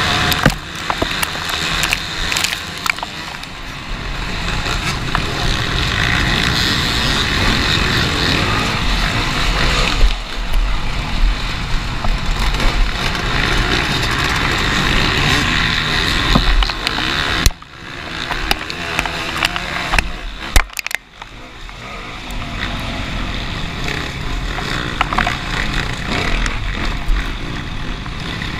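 Motocross bike engines running and revving hard, mixed with a steady rushing noise. The sound drops away briefly twice in the second half.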